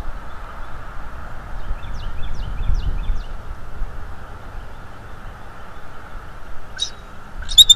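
Wind rumbling on the microphone over a steady background hiss. A small bird gives a quick run of thin chirps about two to three seconds in, and a sharp, high-pitched bird call rings out twice near the end, the second the loudest sound.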